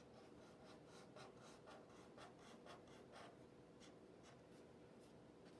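Faint scratching of a drawing tool on paper in short repeated strokes, about two or three a second, as zigzag lines are drawn.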